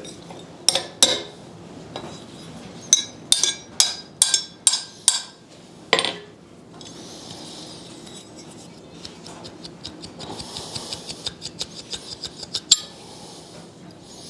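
Hammer driving a small cold chisel into the seam of a failed forge weld: sharp metal-on-metal strikes, a quick run of them in the middle, then quieter rapid metallic ticking and one last sharp strike near the end.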